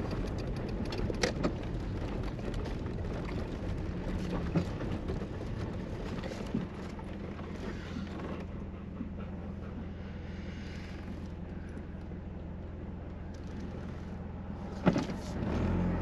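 Engine and road noise inside the cab of a Toyota motorhome on the move, a steady low hum, with a light knock about a second in and a sharper knock near the end.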